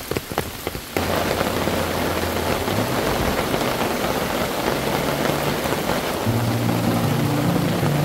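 Rain falling on a camping tarp: scattered drops at first, then from about a second in a steady, dense rain noise. Low music notes come in near the end.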